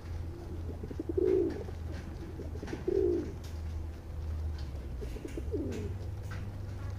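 Feral rock pigeons cooing close by: two loud coos about a second in and at three seconds, and a softer one around five and a half seconds in, over a steady low hum.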